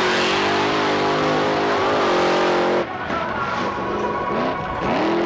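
Pickup truck engine revving at high rpm as it powers through a mud pit, under a loud rush of spraying mud and water. The sound cuts off abruptly about three seconds in, and then an engine is heard with its revs rising in short pulls.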